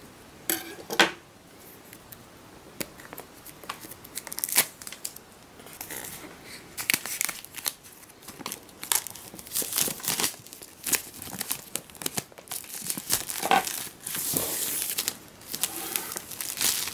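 Clear plastic shrink-wrap being torn and peeled off a boxed Apple Watch, crinkling and tearing in irregular bursts, with a longer stretch of dense crinkling near the end.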